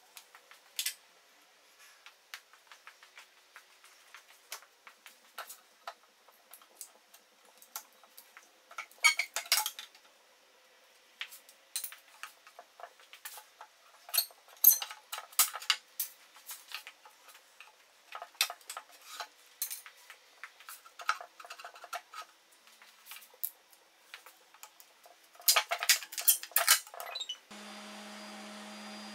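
Metal hand tools scraping and prying along the edge of a resin-coated tabletop, in scattered sharp clicks and short bursts of scraping. Near the end a power orbital sander switches on and runs with a steady hum.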